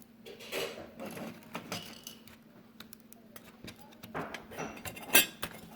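Small clicks, taps and rustles of hands working on the TV's internal boards and connectors, with one sharper click about five seconds in. A faint steady hum runs underneath.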